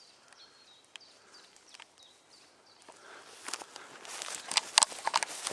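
Footsteps swishing and crunching through tall meadow grass. They start about three seconds in and grow louder, after a quiet stretch with a few faint high chirps.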